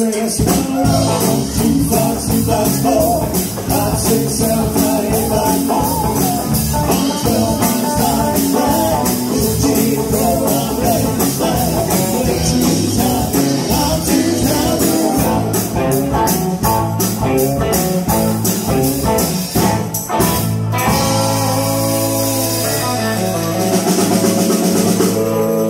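Live rock band playing: electric guitars, bass and drum kit with singing and a shaken tambourine, on a steady beat. About twenty seconds in, the drumbeat stops and the band holds a long final chord.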